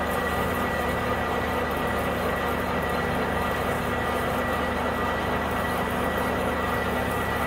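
Metal lathe running steadily at about 250 RPM while a freshly sharpened 15/16-inch twist drill feeds into a spinning block of aluminum, cutting evenly with chips coming off both flutes. It makes a steady mechanical drone with a constant high tone.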